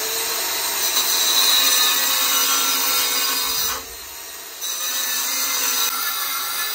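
Handheld angle grinder cutting through a porcelain tile panel: a loud, steady grinding screech. It eases off for under a second about four seconds in, then bites back into the cut.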